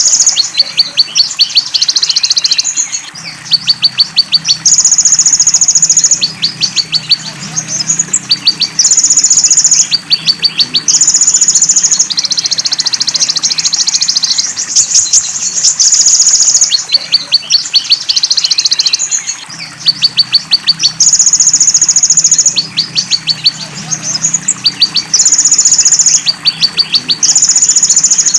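Konin (Van Hasselt's sunbird) song played in a loop: long, very high buzzing trills alternate with fast rattles of high ticks, a new phrase every couple of seconds. The song is filled ('isian') with imitations of belalang emas and cililin. A steady rush of running water sits underneath.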